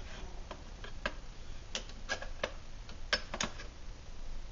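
About a dozen light, irregular metal clicks and clinks as an upside-down WestWind stove stand is pried up and lifted off a lit Trangia alcohol burner.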